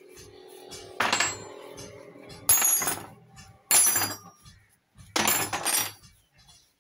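Steel spanners being put down one at a time on a wooden workbench: four sharp metallic clinks, each ringing briefly.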